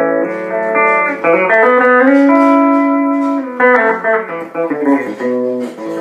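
Alvarez Dana II electric guitar on its Triforce pickup, position 1 with two coils in series, played clean through a small Peavey Backstage amp with a 10-inch speaker. Ringing chords and single notes, with a held note bent up and back down about two seconds in.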